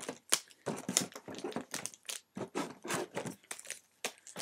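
Pokémon trading-card packaging handled by hand: booster-pack wrappers and cardboard giving irregular crinkling and rustling with small clicks and taps.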